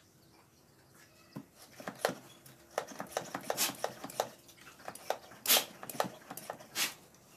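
Plastic hand-pump pressure sprayer being pumped to build pressure: an irregular run of clicks and knocks from the handle and plunger, with a few short hissing strokes.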